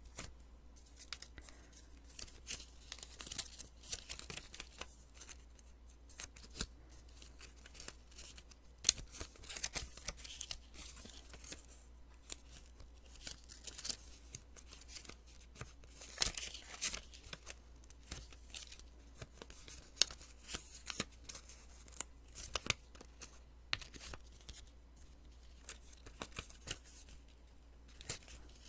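Post-it sticky notes being peeled off the pad: a run of short, crackly, sticky paper-tearing sounds at irregular intervals.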